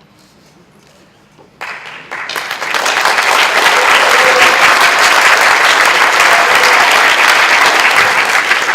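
Audience applause that starts suddenly about one and a half seconds in, swells over the next second and keeps going strongly.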